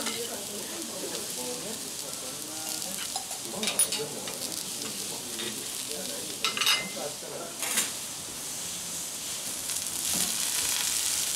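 Vegetables sizzling on a hot steel teppanyaki griddle, a steady hiss that grows louder near the end. Sharp metallic clinks of a spatula and fork against the griddle and plate come about four seconds in and a few more between six and eight seconds in.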